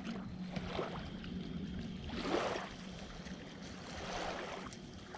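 Small waves lapping at the edge of a lake, rising in two soft washes, over a faint steady low hum.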